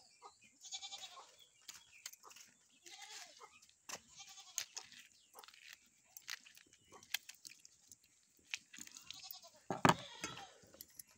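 Goats bleating several times, with scattered sharp clicks and knocks; the loudest is a knock about ten seconds in.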